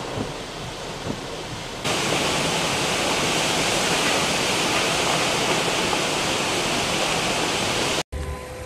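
Steady rushing noise that gets louder about two seconds in and cuts off suddenly near the end.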